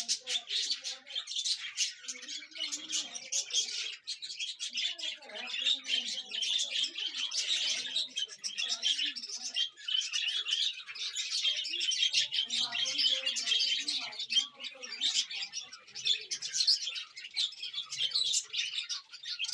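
Many small birds chirping and twittering busily together, a dense chatter with no pause.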